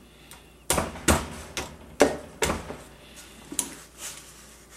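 A string of sharp, irregularly spaced taps and knocks, starting under a second in, as the rear trigger-mechanism pin of a Remington Model 740 Woodsmaster rifle is worked out of the receiver.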